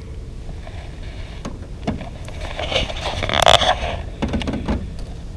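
Close handling noises as a hooked bluegill is unhooked and held up: scattered small clicks over a steady low rumble, with a louder rustling scrape about three and a half seconds in.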